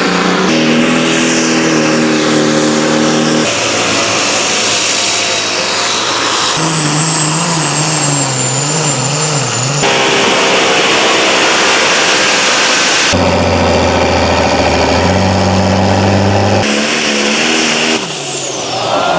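Pulling trucks' engines running at high revs, the engine note jumping suddenly to a different pitch every few seconds.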